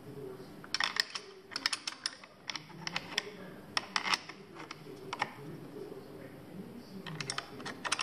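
Irregular clusters of small, sharp plastic clicks and rattles as a winch switch housing is handled and pressed into place on an ATV handlebar.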